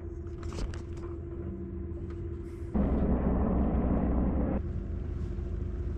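Sailboat under way: a steady low rumble with a faint steady hum. A louder rushing noise comes in for about two seconds in the middle, then drops back.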